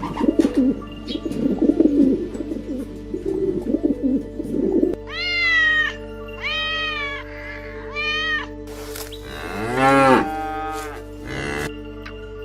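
Farm animal calls over background music, with a cow mooing. Three short arched calls in the middle are followed by a longer, lower moo about ten seconds in, which is the loudest.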